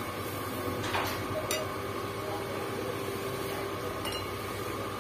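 Steady mechanical hum of room noise, with two light clicks about a second in.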